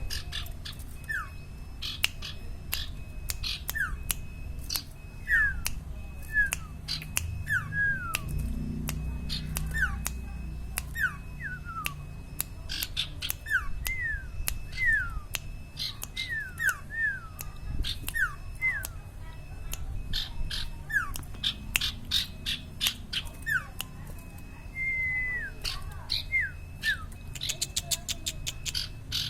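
Cipaw (sirtu) songbird singing in full voice: a long run of short, downward-slurred whistles, about one or two a second, mixed with sharp clicking notes. One note, a little past three-quarters of the way through, is held longer before it falls.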